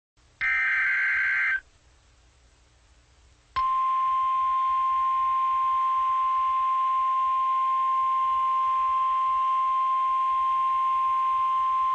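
An Emergency Alert System SAME data burst, a harsh warbling screech about a second long. After a short pause comes the steady single-pitch 1050 Hz NOAA Weather Radio warning alarm tone, held for about nine seconds and cut off abruptly: the signal that a warning message follows.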